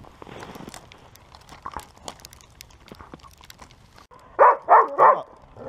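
A dog barks three times in quick succession about four and a half seconds in, an angry bark, after a few seconds of faint scattered crunching in the snow.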